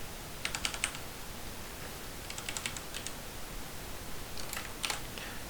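Computer keyboard being typed on in three short bursts of keystrokes, about two seconds apart.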